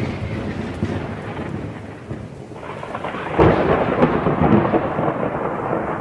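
Thunder rolling over the hiss of rain, fading down from a clap, then swelling into a fresh rumble about three and a half seconds in and dying away again.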